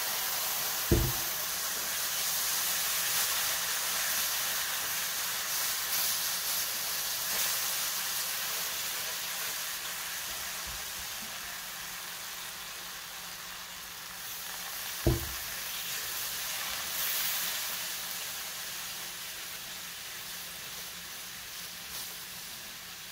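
Water hitting a hot pan of fried onions and browned flour, sizzling and hissing steadily as a wooden spoon stirs it into gravy, the sizzle slowly dying down. Two dull knocks come about a second in and again about fifteen seconds in.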